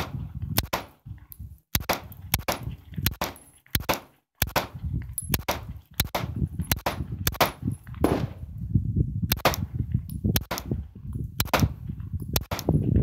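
Glock 17 9mm pistol fired in a long steady string, about two to three shots a second with brief pauses about a second in and about four seconds in, over a low rumble between shots. The pistol cycles through the whole string from a Magpul PMAG GL9 magazine without a malfunction.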